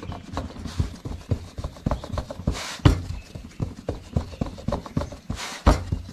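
Rice-flour dough being patted flat by hand on a flour-dusted steel plate to shape a bhakri: quick, uneven soft slaps, several a second, with a couple of louder swishing pats.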